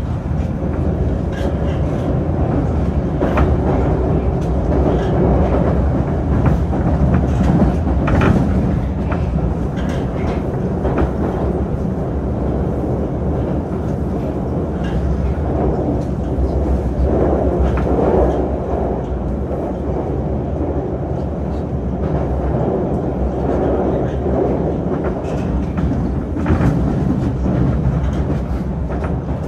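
Moscow Metro Moskva-2020 (81-775/776/777) train running at speed through a tunnel between stations. A steady, loud rumble of wheels on rail carries on throughout, with scattered sharp clicks at irregular moments.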